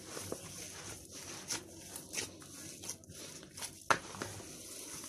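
A hand kneading and squeezing wet ground-meat köfte mixture in a plastic bowl: irregular soft squelches and slaps of meat, with a few sharper knocks against the bowl.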